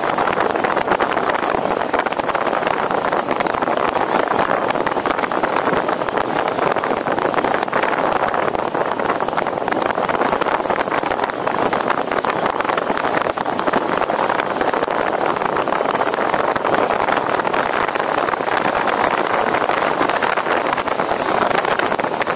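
Steady rush of wind over a roof-mounted camera's microphone on a moving car, mixed with road and tyre noise.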